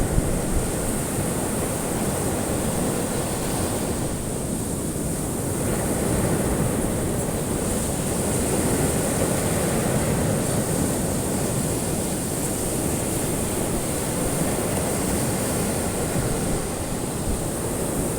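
Ocean surf: waves washing in as a steady rushing noise that swells gently in the middle.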